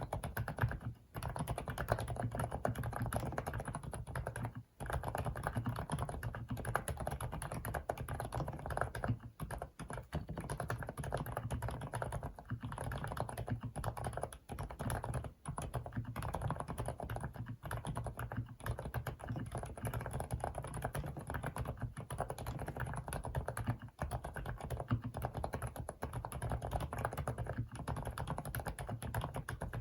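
FL-ESPORTS CMK75 mechanical keyboard with Kailh silent cream linear switches being typed on continuously, a fast, steady stream of soft, muted keystrokes broken by a few brief pauses.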